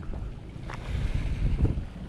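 Wind buffeting the microphone over small waves washing onto a pebble and rock shore, with a couple of short clicks.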